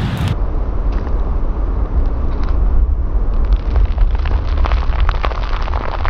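Wind rumbling and buffeting on the microphone, a steady low noise with a few faint clicks and spatters in the latter half.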